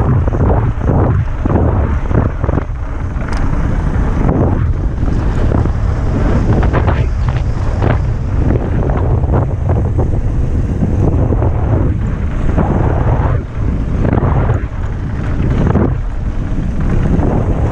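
Wind buffeting an action camera's microphone on a downhill mountain bike at speed, over a steady low rumble of tyres on dirt, with frequent sharp clatters and knocks from the bike rattling over bumps.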